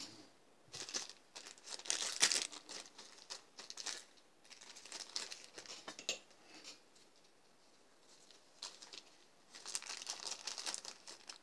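Crinkling and rustling of packaging, a pack of D'Addario guitar strings, being handled and torn open, in three spells with short pauses between.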